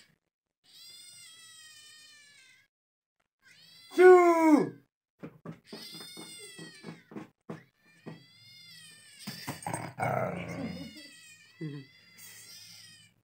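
Recorded cat meows and caterwauling playing from a phone's speaker: a series of high-pitched, wavering calls, with one loud cry falling in pitch about four seconds in and a rougher, noisier stretch around ten seconds.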